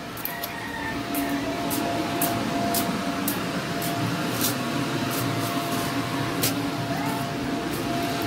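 Electric fan motor running steadily: a constant hum with a held whine over it, a little louder from about a second in. Scattered light clicks and taps sit on top.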